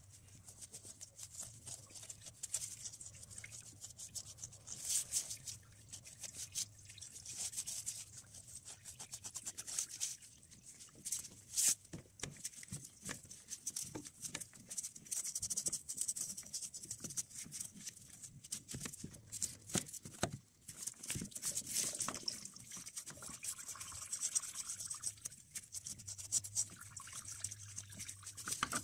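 Faint, irregular rubbing and scraping strokes as a gloved hand scrubs the thermostat seat in the 1.9 TDI engine block clean before the new thermostat goes in. There is a sharper click about twelve seconds in.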